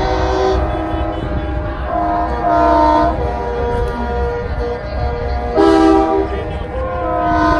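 Semi-truck air horns sounding several long blasts of overlapping notes, the loudest near six seconds in, over a steady low rumble of diesel trucks running.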